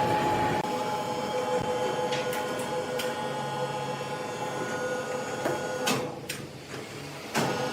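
Sawmill machinery running with a steady mechanical whine, broken by several sharp clunks and knocks.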